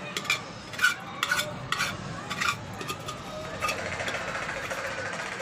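A metal spoon clinking against a bowl as food is stirred and scooped, with several sharp separate clinks, then a fast, continuous scraping rattle over the last two seconds.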